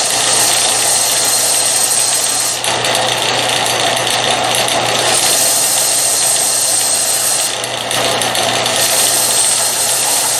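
Belt sander with a 4 x 36 inch 240-grit aluminum oxide belt running: a steady motor hum under the loud hiss of the belt, with a high whine that fades and returns several times.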